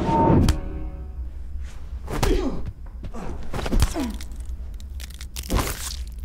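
Fight-scene blows: four hits with a swish and a thud, about one every second and a half, over film music that fades early on.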